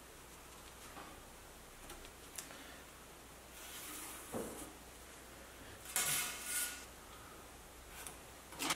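Thin sheet steel and a steel ruler handled on a wooden workbench while a cut line is marked out: scattered light metallic clinks and rattles. The loudest comes about six seconds in, with a brief ring of the sheet.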